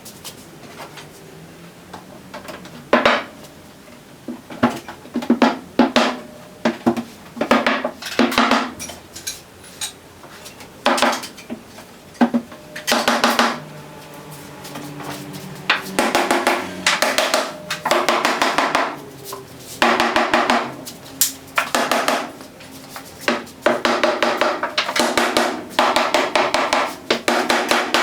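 Hammer blows knocking the mortise-and-tenon joints of a large wooden shrine together: scattered single knocks at first, then quick runs of rapid taps in the second half.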